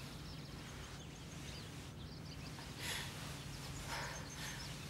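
Quiet room ambience with a low steady hum and faint birds chirping. Two short breathy sounds come about three and four seconds in.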